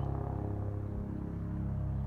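Helicopter flying overhead: a steady low drone of its rotor and engine.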